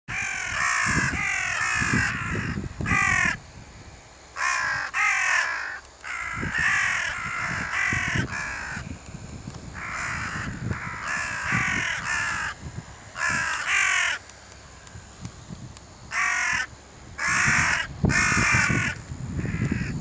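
A flock of crows cawing as they circle overhead, disturbed and flushed into the air. Several birds call in quick, overlapping runs of harsh caws, broken by short pauses between bouts.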